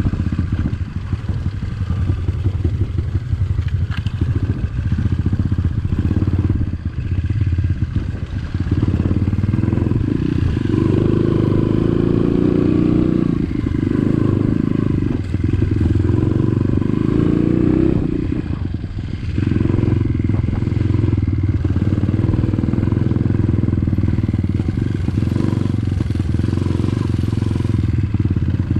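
Trail motorcycle engine running as it is ridden, its note rising and falling with the throttle. It pulls harder for several seconds in the middle.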